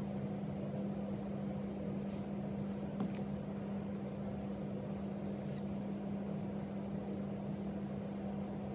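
Steady low machine hum, with a faint tick about three seconds in.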